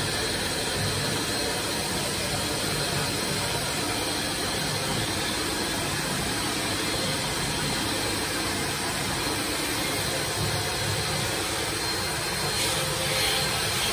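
M1325AG CNC wood router running steadily, its spindle turning with the bit in a wooden board, a dense machine noise with a faint high whine.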